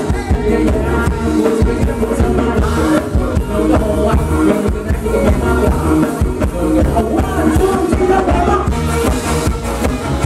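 Live Thai ramwong dance music from a band playing through a PA, with a steady drum beat and a male voice singing over it.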